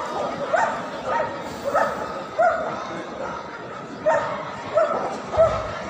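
A dog barking over and over in short, high, sharp barks, about two a second, with a pause of a second or so partway through.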